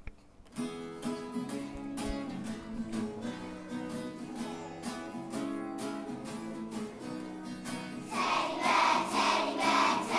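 Children's song: an instrumental introduction of evenly plucked notes, then a group of children singing from about eight seconds in.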